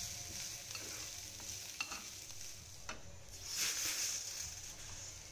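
Sliced garlic and cumin seeds sizzling in hot oil in a frying pan as they fry toward golden brown, stirred with a metal slotted spatula that clicks against the pan a couple of times. The sizzle swells briefly about three and a half seconds in.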